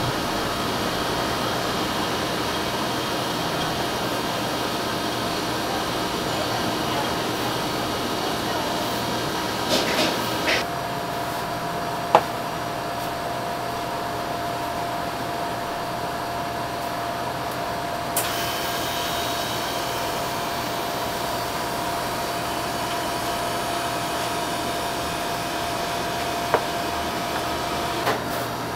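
Steady whir of a running electric fan and kitchen air, with a thin steady tone joining about ten seconds in and a few faint taps.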